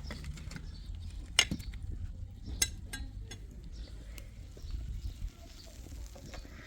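Scattered light clinks and knocks of things being handled, two sharper ones about one and a half and two and a half seconds in, over a low rumble.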